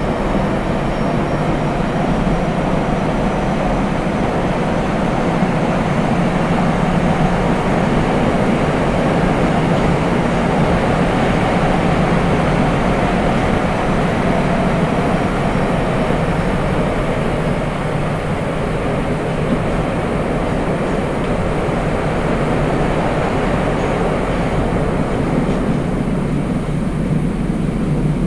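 Nagoya Municipal Subway 5050 series train running between stations in a tunnel, heard inside the car: a steady roar of wheels on rail and running gear, holding level throughout.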